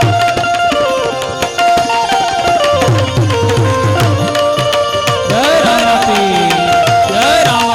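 Instrumental devotional music: a harmonium plays a stepping melody of held notes over hand-drum accompaniment. In the middle the drum plays rapid low strokes, and later its bass strokes bend up and down in pitch.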